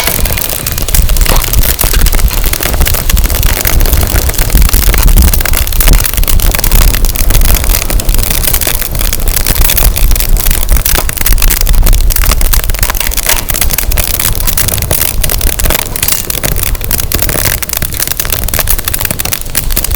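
Firewood burning and crackling, with frequent sharp pops, over a heavy low rumble of wind on the microphone.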